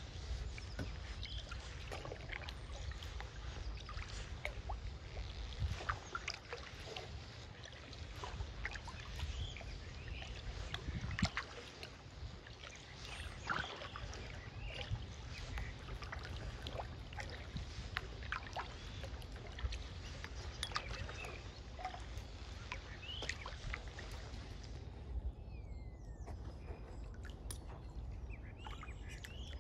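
A canoe being paddled through calm water: paddle strokes with scattered small splashes and drips over a steady low rumble.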